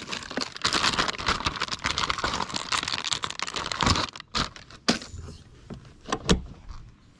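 Plastic bag of soft plastic fishing worms crinkling as it is rummaged through and handled, followed by a few short knocks near the end.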